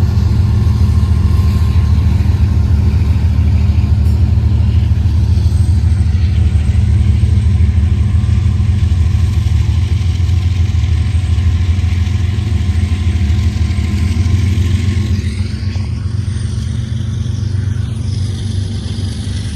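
A large engine running steadily, a loud low drone that eases off a little over the last few seconds.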